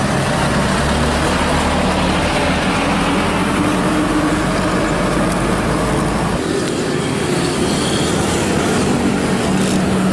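Steady road traffic noise with the low hum of vehicle engines; the deepest rumble falls away about six seconds in.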